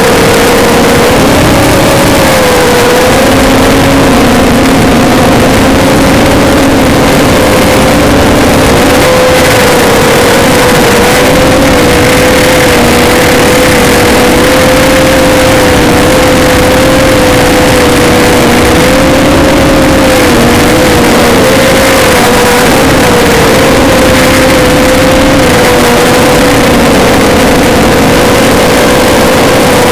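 ZMR250 mini quadcopter's motors and propellers humming, recorded on board, very loud and distorted. The hum holds a steady pitch that wavers slightly up and down with the throttle, over a constant rushing noise.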